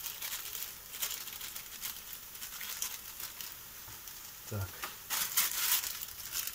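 Plastic cooking bag of pearl barley crinkling as the grain is shaken out into a frying pan of fried onion and carrot, with a faint sizzle under it; the crinkling is loudest about five seconds in.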